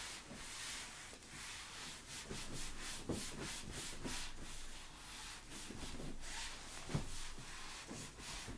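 Whiteboard being wiped clean with an eraser: quick back-and-forth rubbing strokes, about three a second, with a couple of soft knocks.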